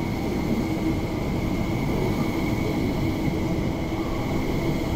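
MTR West Rail Line SP1900 (IKK) electric multiple unit pulling into an underground platform: a steady rumble of wheels on rail and running gear as the cars roll past.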